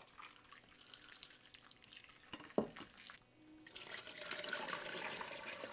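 Hot blanching water draining from a tipped stainless-steel bowl into a steel sink, splashing down over the drain from about three and a half seconds in. Before it there are faint clinks and one sharp knock of metal or chopsticks against the bowl.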